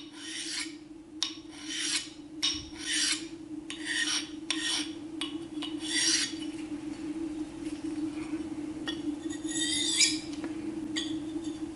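Knife edge stroked gently over an 8000-grit CBN sharpening stone in short rasping strokes, about one every half second to a second, with a quieter spell partway through. The light passes flatten an apex left uneven by the belt grinder. A steady low hum runs underneath.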